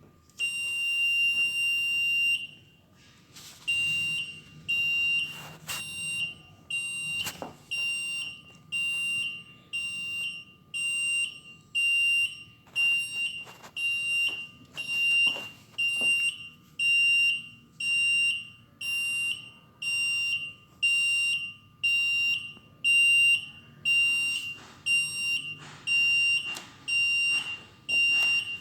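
Avian transport ventilator's audible alarm: one high tone held for about two seconds, then a short high beep repeating about once a second, with a few faint clicks.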